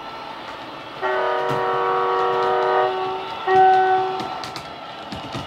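Model locomotive sound decoder in a Hornby Mk3 DVT playing its horn through the model's speaker: a long blast starting about a second in, then a shorter, louder blast about half a second after it ends. Underneath runs a steady diesel engine sound, with a few small clicks near the end.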